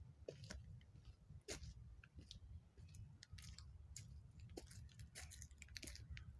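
Faint footsteps crunching on a forest trail: irregular crunches and clicks over a low rumble.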